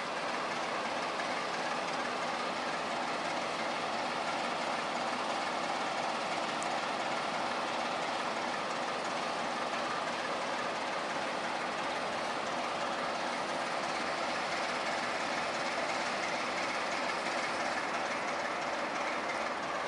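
GM diesel-electric locomotive's engine running steadily as the locomotive rolls slowly along the track, with faint rail noise.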